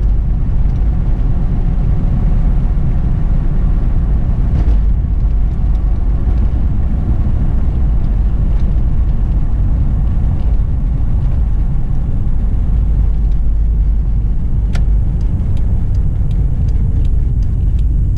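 Inside the cab of a 1990 Toyota Land Cruiser FJ62 on the move: its inline-six engine running steadily under a low road rumble. A single sharp click comes about fifteen seconds in, followed by a run of light, evenly spaced ticks near the end.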